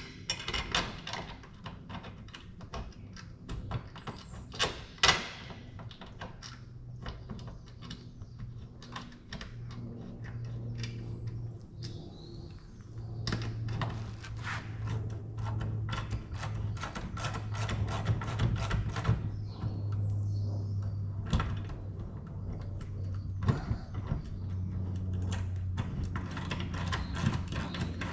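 Hand-tool work on a car's shifter assembly: quick metallic clicks and occasional knocks. Underneath runs a steady low hum that shifts in pitch every second or two.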